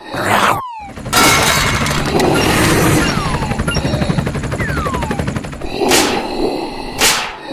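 Layered cartoon sound effects: a fast rattling run of clicks like gunfire for a couple of seconds, several short falling whistles, and two quick whooshes near the end.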